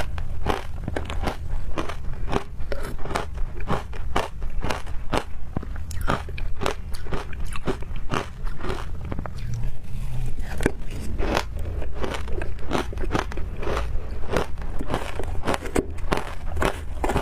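Ice being bitten and chewed close to the microphone: rapid, crisp crunches, several a second.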